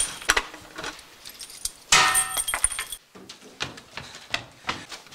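Clinking and rattling of small hard objects, with a loud jangling clatter about two seconds in that lasts about a second, then lighter scattered knocks.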